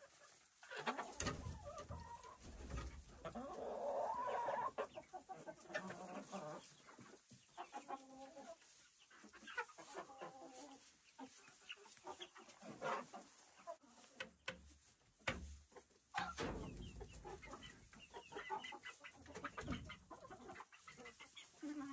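A flock of hens clucking on and off, with short calls scattered through, and a few low thumps.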